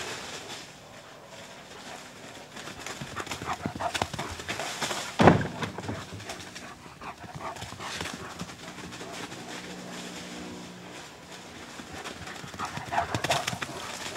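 German shepherd dogs' paws scrambling and skidding over dry fallen leaves as they chase back and forth, an irregular rustling and scuffing, with one loud sharp thump about five seconds in.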